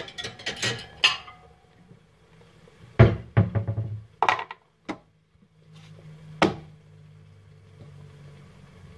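Kitchen clatter of pots, pans and utensils: a quick run of clanks and knocks at the start, another cluster a few seconds in, then two single knocks, over a faint low steady hum.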